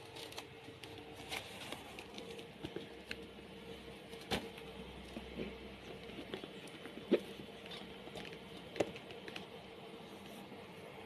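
Handling noise from a handbag being turned over and its strap fingered: scattered small clicks, taps and rustles, three of them sharper about four, seven and nine seconds in, over a faint steady hum.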